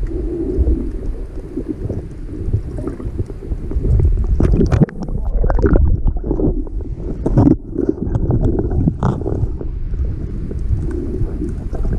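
Muffled underwater noise of water moving around a GoPro camera housing as it is carried along a fouled hull. A steady low rumble runs throughout, with several louder, irregular rushing bursts between about four and nine seconds in.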